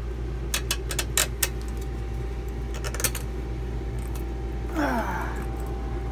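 Sharp metallic clicks and clinks of hands and a small tool working a hose clamp on a diesel engine: several in the first second and a half and one more around three seconds in, over a steady low hum. A short falling squeal comes near five seconds.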